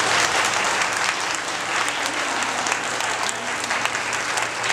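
Audience applauding steadily at the end of a children's choir song.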